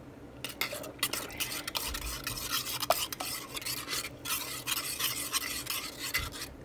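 A spoon stirring a thick cream-soup and milk sauce in a stainless steel pot, scraping and clicking against the pot's sides and bottom in quick, continuous strokes.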